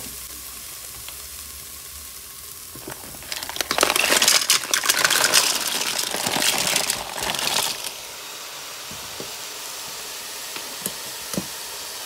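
Onion and garlic sizzling in butter in a hot Cookeo multicooker pot. About three seconds in, a load of mussels is poured in: for about four seconds their shells clatter against each other and the pot over a louder burst of sizzling. A quieter steady sizzle follows, with a few single shell clicks.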